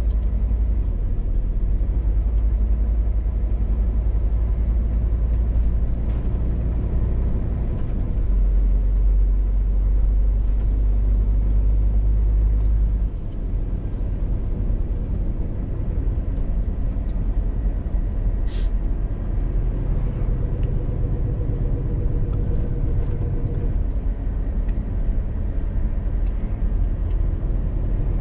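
Scania R450 articulated lorry's diesel engine running on the road with a steady low rumble; the engine note shifts about eight seconds in and drops, quieter, about thirteen seconds in.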